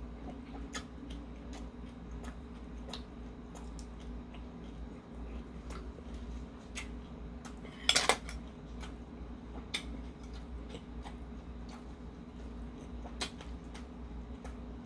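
Metal chopsticks clicking and scraping against a porcelain plate as food is picked up, with small mouth sounds of chewing between; a louder clatter of a few strikes comes about eight seconds in and another near the end.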